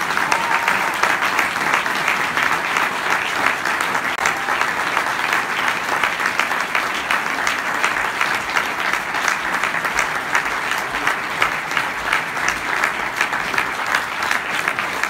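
A roomful of people applauding steadily, many hands clapping at once, in closing applause at the end of a talk.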